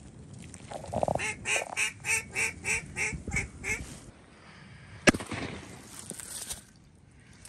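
A run of about ten mallard-style quacks, three or four a second, each quieter than the last, in the falling pattern of a hen mallard's greeting call. About five seconds in comes a single sharp crack.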